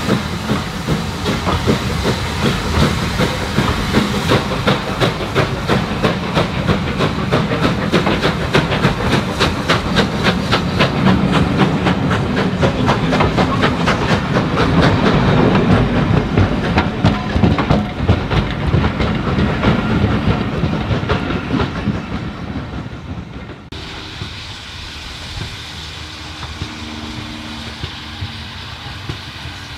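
Passenger coaches of a steam-hauled train rolling past close by: a steady rumble with rapid clickety-clack of wheels over the rail joints. About three-quarters through, the sound drops suddenly to a much quieter, distant background with a faint hum.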